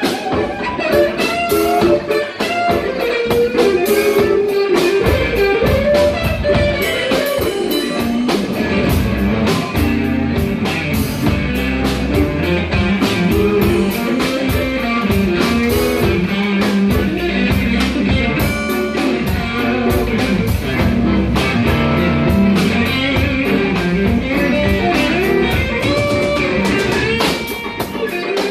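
Live blues band playing: electric guitar over bass and drum kit, with steady drum beats.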